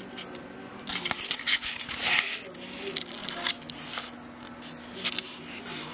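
Handling noise: scraping and rubbing with sharp clicks from about one to three and a half seconds in, and another short scrape around five seconds in, as the recording device is moved against a wooden surface.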